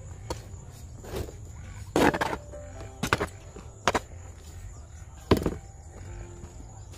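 Moist bio-compost mix being poured from a woven basket into a sack: irregular scrapes and dull thumps about once a second, the longest and loudest about two seconds in.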